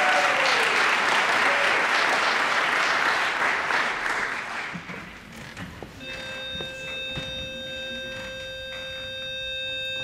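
Audience applause fading out over the first five seconds, then a pitch pipe sounds one steady note for about four seconds, giving the barbershop chorus its starting pitch.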